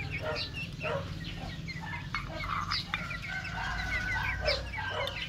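Two-month-old Ayam Cemani chickens calling, with many short, high chirping peeps and clucks and one longer held note a little past the middle.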